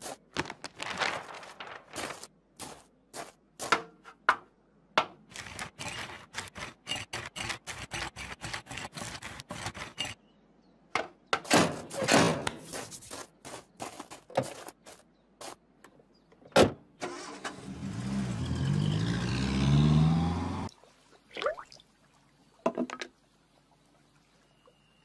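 A busy run of short knocks, clicks and rustles from handling things around a small van, then a single loud knock, then the van's engine starting and revving up for about four seconds, its pitch climbing, before cutting off suddenly.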